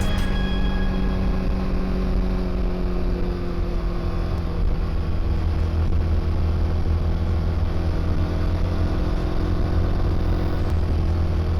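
Motorcycle engine running steadily at a constant, moderate speed on a gentle climb, with road and wind noise.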